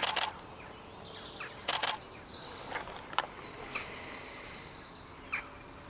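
Canon DSLR shutter firing in two quick bursts of a few frames each on high-speed continuous drive, with one more single click about three seconds in.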